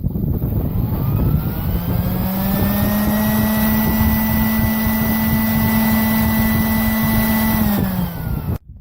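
Electric motor of a plugged-in tool or appliance running off the repaired extension cord, showing the cord now carries power: it spins up over the first couple of seconds with a rising hum, runs steadily, then winds down near the end with a falling hum and cuts off.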